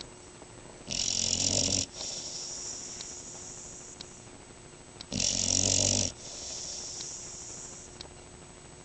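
Dog snoring in deep sleep: two loud, rasping snores about four seconds apart, each lasting about a second, with softer breathing between them.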